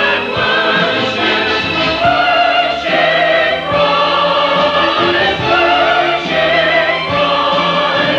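Church chancel choir singing a Christmas cantata, the voices holding long wavering notes in phrases, as recorded on an old VHS tape.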